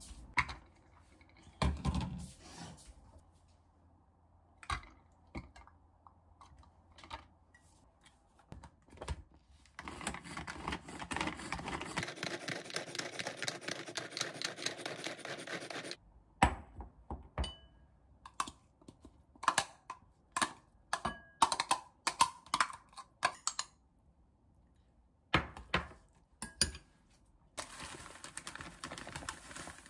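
A hand-pressed manual food chopper working for about six seconds in the middle, a fast run of dense clicking as it chops inside its lidded container. Around it, scattered knocks and taps of kitchen utensils and containers, and near the end a scraping rustle as rice is spooned into a glass bowl.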